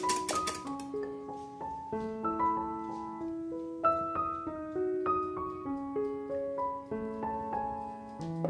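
Background piano music, single notes and chords played at an easy pace. In the first second a wire whisk clatters rapidly against a glass bowl.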